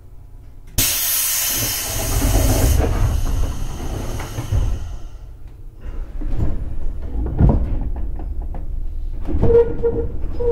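Sudden loud hiss of compressed air being released on a 211 series electric train, about a second in, fading away over several seconds, typical of the train's air brakes or pneumatic door gear venting at a station. Low rumbling and a few knocks from the train follow.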